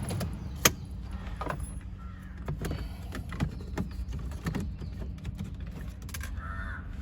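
Scattered clicks and knocks of hands and tools working the climate control unit into the dashboard of a VW Polo 6R, the sharpest click under a second in, over a steady low hum.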